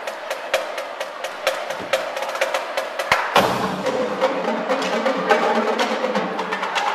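Marching drumline playing snare drums, tenor drums and bass drums, with rapid sharp stick strokes. About three seconds in the playing grows denser and fuller, with low bass-drum tones underneath.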